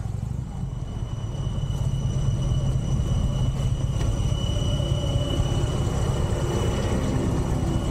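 Harley-Davidson motorcycle engine running on the move, a steady low rumble mixed with wind on the microphone. Its pitch rises a little over the last few seconds.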